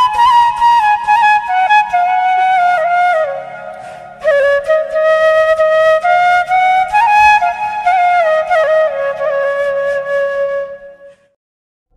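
Background music: a flute playing a stepwise melody, fading out near the end.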